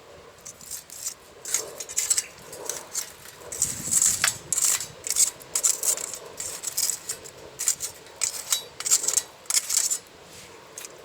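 Irregular light clinking and rattling of metal objects being handled, in quick clusters of sharp knocks, dying down about ten seconds in.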